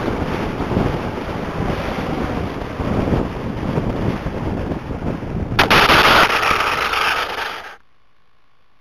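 Wind rushing over the onboard camera microphone of a low-flying AXN Floater foam RC plane. About five and a half seconds in comes a sudden loud crash as the plane hits the road, with about two seconds of noisy skidding that then cuts off abruptly.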